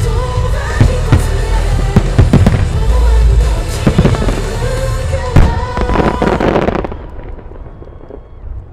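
Fireworks shells bursting in rapid succession with crackling, over music. The bursts die away about seven seconds in, leaving only the quieter music.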